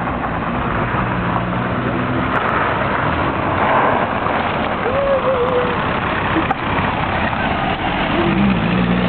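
Volkswagen Golf's engine running as the car is driven on a gravel road, under a steady rushing noise. Near the end an engine note rises briefly and then holds steady.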